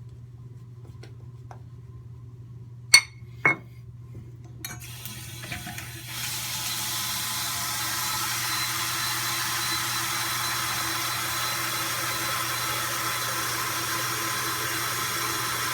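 Two sharp clinks about three seconds in, then a tap starts running and pours steadily for the rest of the time.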